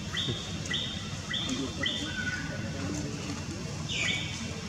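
An animal's short high-pitched calls: four alike, about two a second, then a lower one, and near the end a longer call that starts with a falling glide.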